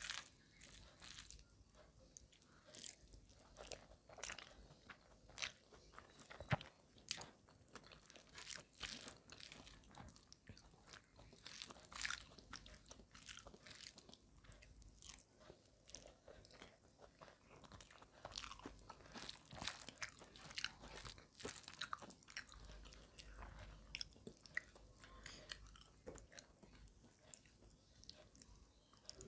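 Close-miked eating sounds: rice and curry chewed, with many small irregular clicks and crackles, and fingers mixing the food on a steel plate.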